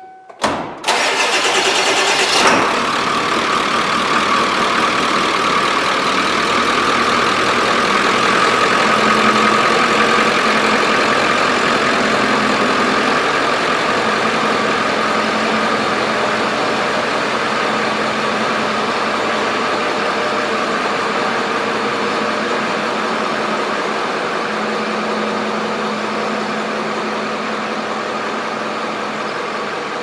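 A vehicle engine starts with a sudden, loud two-second burst, then runs steadily with a faint high whine over it.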